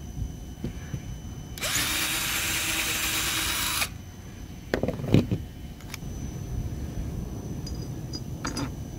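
Power drill running steadily for about two seconds, its bit boring through the fiberglass deck laminate, which gives only resin shavings and no wood core. A few sharp knocks follow about five seconds in, and faint clicks near the end.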